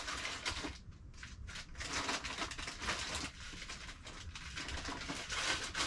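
Rustling and crinkling of items being rummaged through in a cardboard box, coming in irregular bursts.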